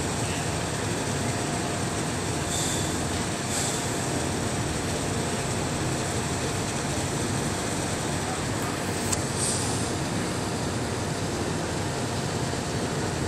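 Steady, even drone of heavy offshore platform machinery, with a few short hissing puffs about two and a half, three and a half and nine seconds in.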